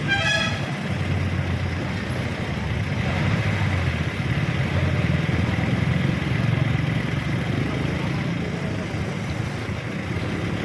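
Motor vehicle engines running in road traffic, a steady rumble that grows louder for a few seconds in the middle.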